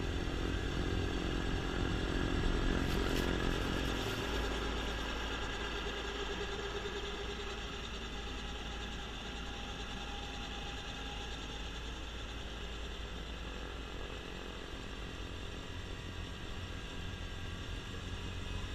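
Kubota B2650 compact tractor's diesel engine running with its front-mounted snowblower spinning. It is loudest in the first few seconds while snow is being thrown, then a little quieter and steady.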